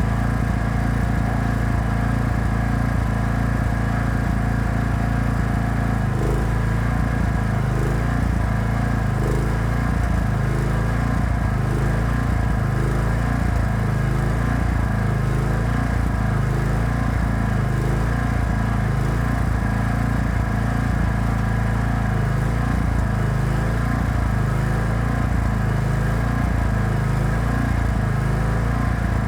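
Engine-driven welding generator running steadily. About six seconds in, its note starts to waver regularly, a little more than once a second.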